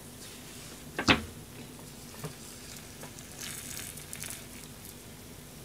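Bread frying in butter in a frying pan, giving a low steady sizzle. There is one sharp knock about a second in, and a scraping rustle a little past the middle as meat is pushed off a second pan onto the slice.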